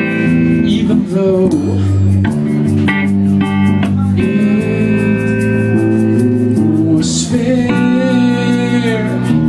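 Live band music: a man sings long held notes over guitar and electric bass.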